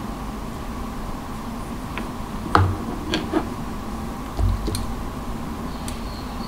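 A few light plastic and metal clicks and soft knocks from handling Kelvin clip test leads as they are clamped onto a resistor, with dull bumps about two and a half and four and a half seconds in, over a steady low room hum.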